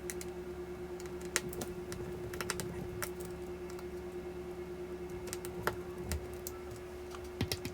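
Small scattered clicks and ticks of a precision screwdriver turning out the tiny screws that hold a MacBook Air's battery, over a steady low hum.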